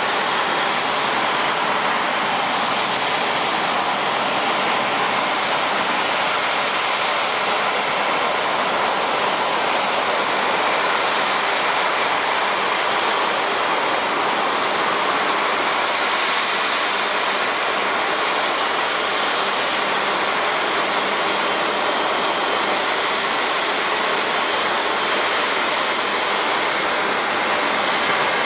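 Airbus A350's Rolls-Royce Trent XWB jet engines running at taxi power: a steady jet hiss with a few faint, steady high tones through it.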